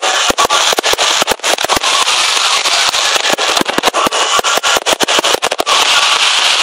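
Fireworks going off overhead: a dense, irregular run of many sharp pops and crackles every second, over a steady hiss.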